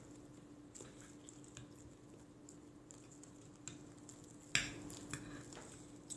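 Faint eating sounds: soft mouth noises and scattered small clicks, with one sharper knock about four and a half seconds in, over a low steady hum.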